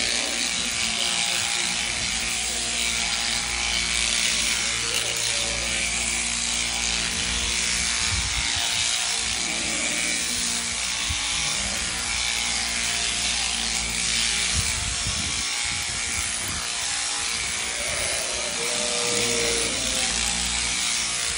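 Electric sheep-shearing handpiece, driven by a jointed drive shaft, running steadily as its comb and cutter clip through a lamb's fleece, a continuous buzzing hiss.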